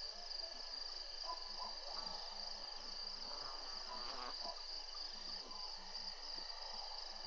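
Crickets and other insects chirring in a steady, high-pitched evening chorus. A brief scratchy rustle sounds about three to four seconds in.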